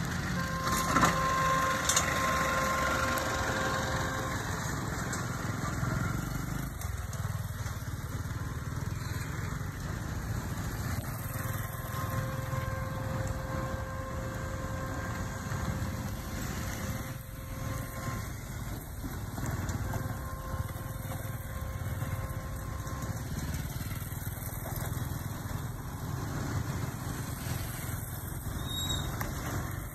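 An engine running steadily with a low, even rumble, and a faint pitched hum that comes and goes. Two short knocks come about a second and two seconds in.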